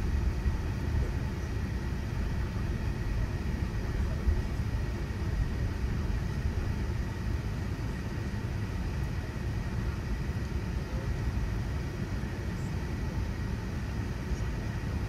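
Airbus A380 cabin noise: a steady low rumble of the engines heard from inside the passenger cabin as the airliner taxis and lines up on the runway for take-off.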